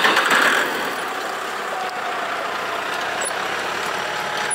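Engine of a 604E wheel tractor running steadily while pulling a three-row corn seed planter through the field, a little louder in the first second.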